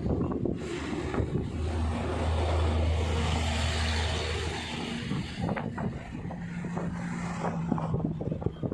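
Motor traffic passing on the bridge: a low engine hum swells and fades in the first half, and another engine goes by later, over a steady rush of wind on the microphone.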